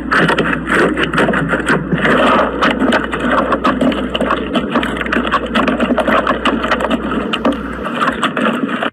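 Slime being squeezed and worked by hand, giving a dense run of small crackling clicks and pops.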